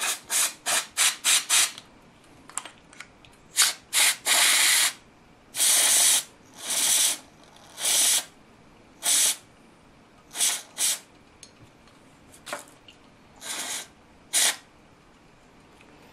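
Aerosol can of carburetor cleaner spraying in a string of hissing bursts onto a small electronic switch. Five quick puffs come first, then more widely spaced squirts, some lasting up to about a second.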